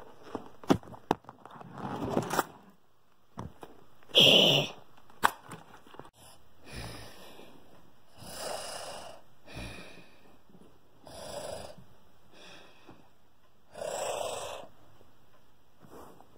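A person making pretend snoring sounds for a sleeping dinosaur hand puppet: slow, breathy snores repeating about every two to three seconds. A few sharp clicks and knocks of handling come near the start.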